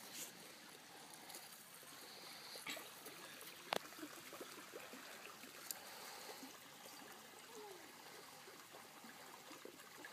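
Faint steady rush of distant river water, with one sharp click a little under four seconds in.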